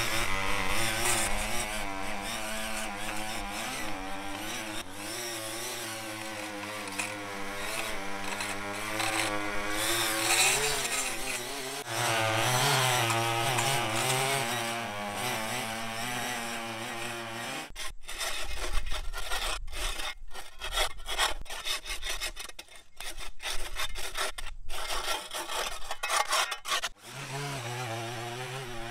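Small petrol engine of a yard power tool running, its pitch wavering up and down as it works under changing load. About two-thirds of the way in, the sound turns choppy, cutting in and out in short stretches, then settles back to steady running near the end.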